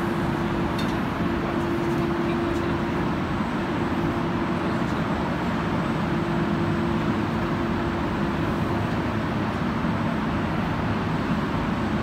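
Steady running noise of an EPDM foam insulation pipe production line, its conveyor and drive machinery working continuously, with a steady hum that fades for a couple of seconds a few seconds in and then returns.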